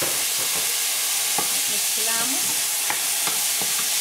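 Diced tomato, onion and sweet pepper sizzling in hot oil in a frying pan while a spatula stirs them, with scattered light scrapes and knocks of the spatula against the pan.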